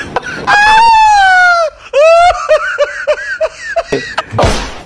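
Very high-pitched laughter: a long falling note about half a second in, then a run of short, quick laughs, about three or four a second. A short rush of noise comes near the end.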